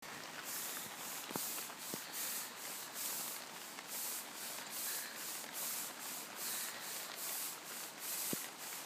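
Push broom bristles scraping across wet paving slabs in quick, repeated sweeping strokes, about two a second, with a few light knocks of the broom head on the ground.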